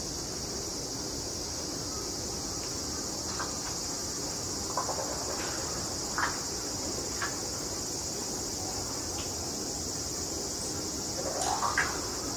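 A steady high-pitched chirring drone, with a few faint clicks and knocks scattered through it and a short rising swish near the end.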